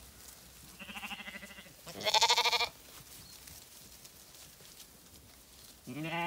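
Zwartbles lambs bleating: three separate calls. A quavering bleat comes about a second in, a louder, higher-pitched one follows a moment later, and a lower, steadier bleat starts near the end.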